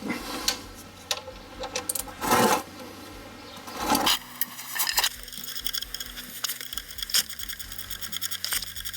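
Metal scraping and knocking as a spanner works the 13 mm sump drain plug loose, with two louder swells of noise in the first few seconds. Background music with a steady beat takes over after about four seconds.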